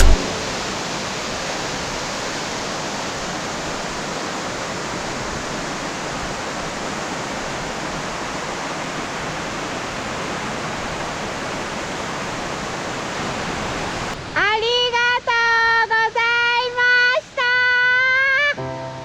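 Waterfall rushing as a steady even hiss. About fourteen seconds in the water sound stops and a loud, high melody of held notes, voice-like, plays for about four seconds.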